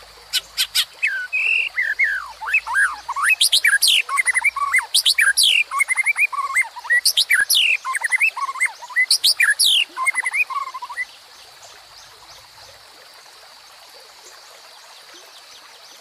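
White-rumped shama singing a long, rapid, varied song of whistles, sweeping notes and sharp clicks, which stops about eleven seconds in. Under it runs the steady babble of a shallow rocky stream.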